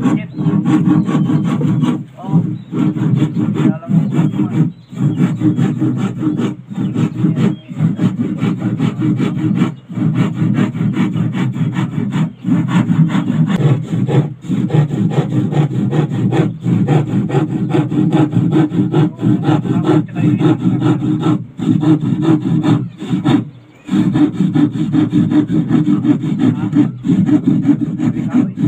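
Handsaw cutting through a thin plywood sheet in quick back-and-forth strokes, stopping briefly every few seconds.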